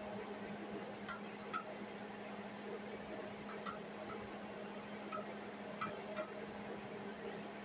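Hobart Handler 120 MIG welder's wire feed motor running steadily with a faint hum, feeding new flux-core wire through the gun liner, with a few light scattered clicks.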